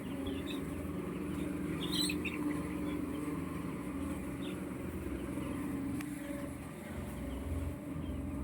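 Poultry giving short high cheeps, a few at a time and mostly in the first half, over a steady low mechanical hum.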